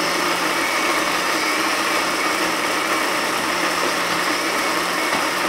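Philips countertop blender running steadily, pureeing a thick orange-red mixture.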